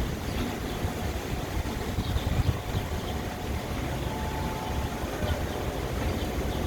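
Wind buffeting the microphone: an uneven low rumble in gusts over a steady rushing hiss.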